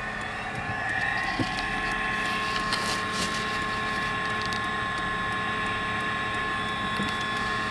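Steady running noise of a car heard from inside its cabin as it rolls slowly, with a steady hum and a few faint ticks over it.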